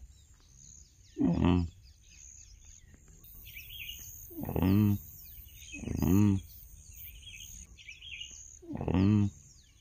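Wild pig giving short, low grunting calls again and again, one every one to three seconds, with small birds chirping.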